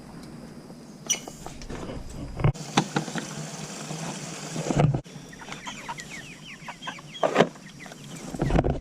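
Chickens clucking and peeping in short, quick calls, with scattered light knocks. The sound breaks off abruptly twice.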